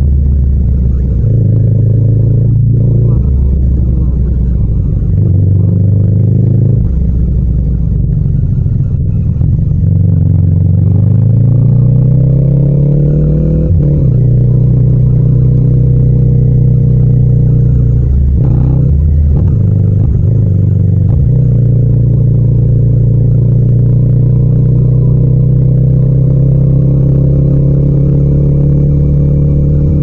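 Yamaha MT-07 parallel-twin engine running in third gear at city speed. Its pitch rises as it accelerates about ten seconds in and dips briefly as the throttle is rolled off and on, then it holds a steady cruise.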